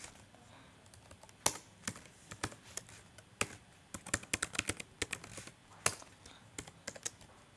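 Typing on a computer keyboard: irregular key clicks, a few at a time, coming thickest about four to five seconds in.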